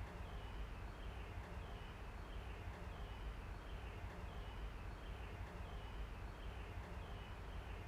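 Outdoor ambience: a steady low rumble with a short, high chirp repeating evenly, just under twice a second.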